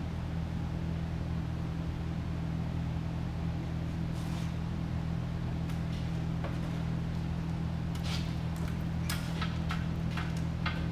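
Steady low mechanical hum of shop machinery. Over it come a few short scrapes, clicks and rasps, most of them in the last few seconds, as wiring and a fish tape are handled at the boat's stern.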